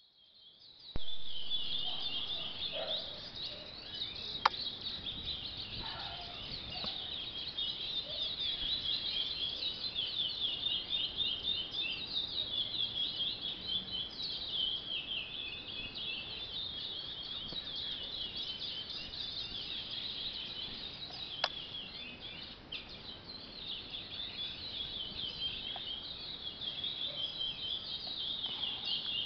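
Young curiós (chestnut-bellied seed finches) still learning their song, singing fast, dense runs of high chirping notes that start about a second in. Two sharp clicks cut through, about four seconds in and again after about twenty-one seconds.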